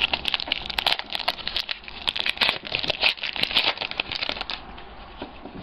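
Plastic wrapper of a baseball card pack crinkling as it is torn open and handled. The dense crackling stops about four and a half seconds in.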